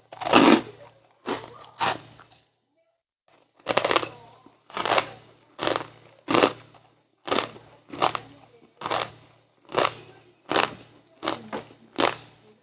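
Close-up chewing of crunchy snacks: a sharp crunch about every two-thirds of a second, each dying away quickly, broken once by a short spell of total silence about two seconds in.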